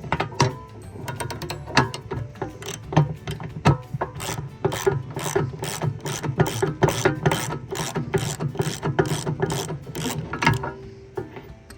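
17 mm ratchet wrench clicking in quick runs as it backs out a set bolt that locks a backhoe bucket pin. The clicks come thickest from a few seconds in and stop shortly before the end.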